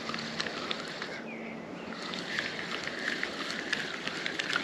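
Fixed-spool fishing reel being wound in, its turning rotor and handle making a run of rapid, uneven clicks and ticks.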